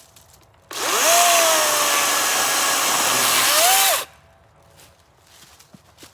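Battery-powered electric chainsaw running for about three seconds: the motor whine spins up quickly, sags a little in pitch in the middle, climbs again and stops abruptly when the trigger is released.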